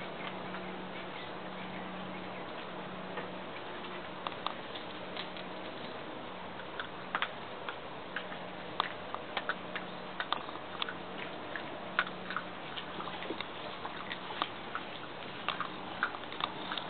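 3/4 Cavalier puppies playing with their toys: scattered light clicks and taps, coming more often after the first few seconds, over a steady low hum.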